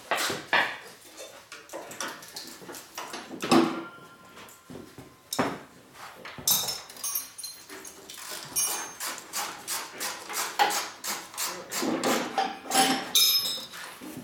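Metal hand tools and parts clinking and knocking during work on a motorcycle's front wheel and fork. It comes as scattered sharp knocks at first, then a quick run of clicks through the second half.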